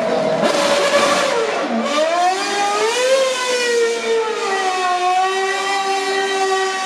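Race car engine running hard, its pitch dropping about a second and a half in, climbing again, then easing down and holding a steady note for the last couple of seconds.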